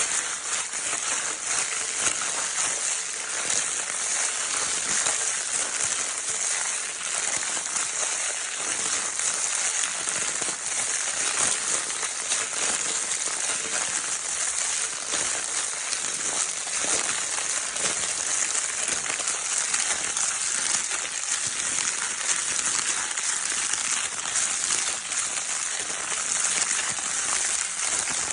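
Crinkle paper of a baby's crinkle toy being crumpled and rustled continuously: a dense, steady crackle with no pauses.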